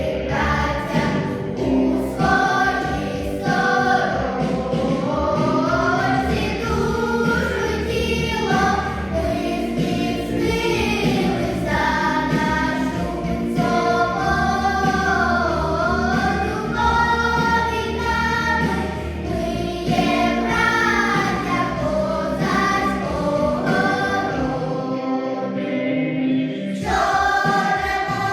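A children's choir singing a song over an instrumental accompaniment. The low accompaniment drops out for a moment near the end, then the voices and accompaniment come back in together.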